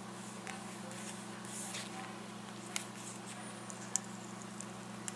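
Faint rustling and three small sharp clicks from hands working electrical tape around a GPS touchscreen, over a steady low hum.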